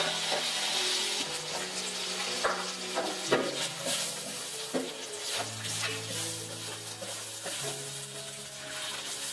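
Stir-frying in a large wok: food sizzling in hot oil while a metal spatula scrapes and knocks against the wok now and then. Soft background music with long held notes plays underneath.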